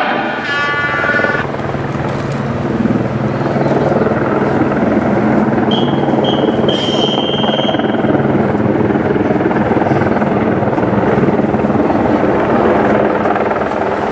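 Helicopter flying overhead: a steady engine and rotor drone. About six seconds in, a high whistle-like tone sounds for about two seconds, broken twice.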